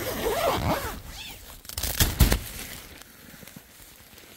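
A wordless voice sliding up and down in pitch. About two seconds in it gives way to a short burst of loud crackling noise, then fades.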